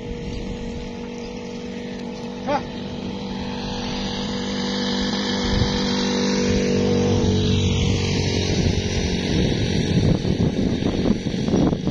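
An engine running steadily with a constant hum, growing gradually louder from a few seconds in.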